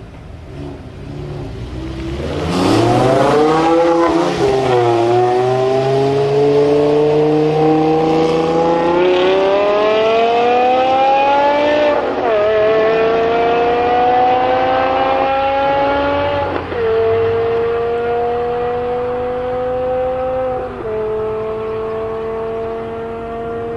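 BMW M5 E61 Touring's 5.0-litre V10 with a KKS race exhaust launching hard about two seconds in and accelerating flat out. The pitch climbs through each gear and drops back at four upshifts as the car pulls away down the track.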